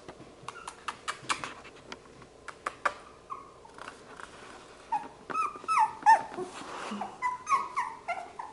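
Labradoodle puppies at play: scattered clicks and knocks at first, then from about five seconds in a run of short, high, falling yips and whines.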